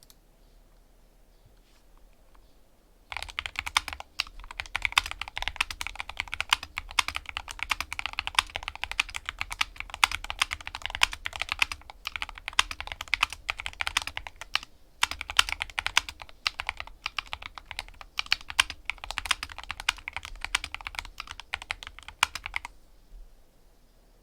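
Fast typing on a Skyloong SK64S keyboard with optical Gateron Red linear switches lubed with Krytox 205g0, its case filled with 5 mm foam: a dense, steady run of keystrokes. The typing starts about three seconds in, breaks off briefly in the middle, and stops a little before the end.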